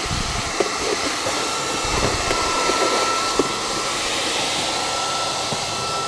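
Redroad 17 Lite cordless stick vacuum running steadily with its crevice nozzle on a car floor mat: a constant high motor whine over rushing suction air, with a few small ticks.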